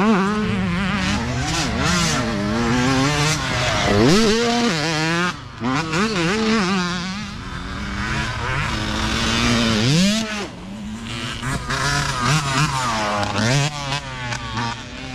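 Small youth dirt bike engines revving as the bikes ride past one after another, the pitch climbing and dropping repeatedly as the riders throttle up and back off, with sharp revs about four seconds in, ten seconds in and near the end.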